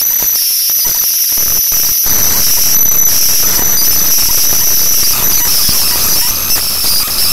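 Loud, steady static-like hiss with a constant high-pitched whine running through it: electrical noise in the recording.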